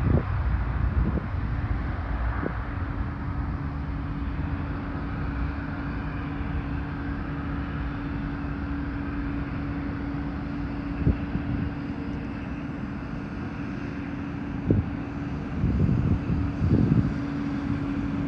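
Jet airliner engines, loudest at the start and easing over the first few seconds into a steady rumble with a steady low hum. A few brief knocks come through near the end.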